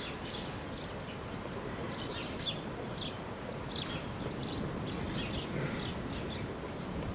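Small birds chirping on and off in short calls over steady outdoor background noise.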